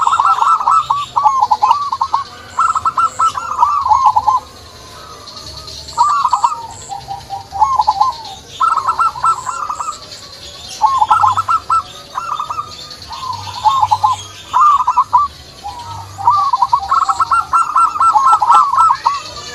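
Zebra dove (perkutut) cooing: short phrases of quick rolling notes, repeated again and again with brief pauses between them.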